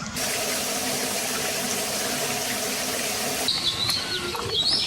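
A steady rushing noise like running water, with a low hum under it, stops abruptly about three and a half seconds in. Small birds then chirp in high, gliding notes.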